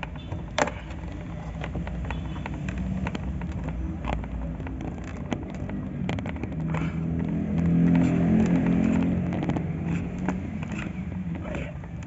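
Light clicks and knocks of plastic wiring connectors being handled and pushed onto a washing machine's control board, over a steady engine drone that grows louder about eight seconds in and then fades, as a vehicle passes.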